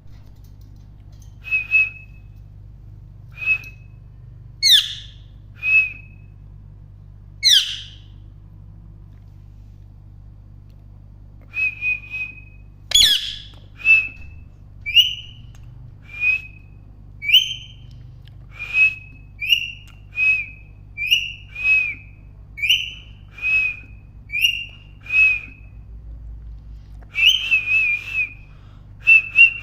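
A parrot giving short, clear whistled calls, with a few louder, harsher calls that sweep upward. After a pause about a third of the way through, the whistles come roughly once a second.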